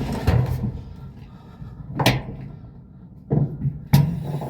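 Knocks and clunks from a clothes dryer being handled as its drum is turned by hand to check the new belt and idler pulley, with a sharp click about two seconds in.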